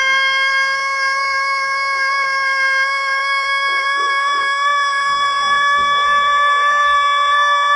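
A rooster's crow drawn out into one long, unbroken note, held steady and slowly rising in pitch.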